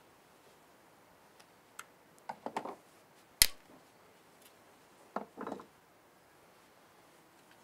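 Small knife cutting into a green branch: a few groups of quick clicking cuts and one sharp, much louder click about three and a half seconds in.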